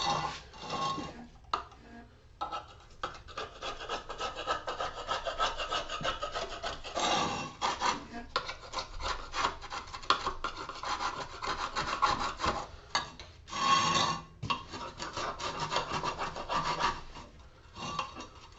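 Hand tool scraping and rasping at a workpiece in rapid strokes, with a short pause about two seconds in and louder spells partway through.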